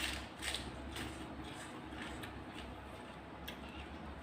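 Eating sounds: a few soft, sharp clicks and crunches, the strongest at the start and in the first second, then fainter ticks.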